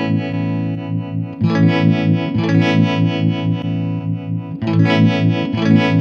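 Electric guitar chords played through the tremolo side of a Strymon Flint V2 pedal, each chord left to ring. New chords are strummed about a second and a half in and again near the end.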